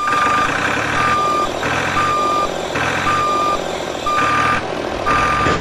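Vehicle reversing alarm beeping steadily, a single-pitched beep about once a second, six times, over a continuous mechanical whirr.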